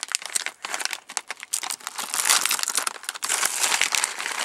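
Plastic snack bag crinkling and rustling as it is handled and opened, in a dense, irregular crackle.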